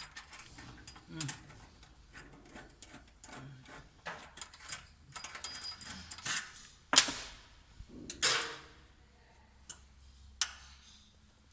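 Metal parts and tools clinking, rattling and knocking as they are handled during hands-on repair of a machine, with a few sharper knocks in the second half.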